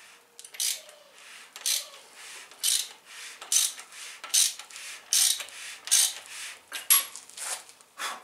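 Hand ratchet turning the crank bolt in the balancer of a 5.3 LS engine, the pawl clicking in short runs about once a second, about ten strokes.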